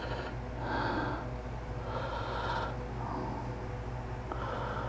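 A man breathing audibly through his nose close to the microphone, about four soft breaths, over a steady low hum.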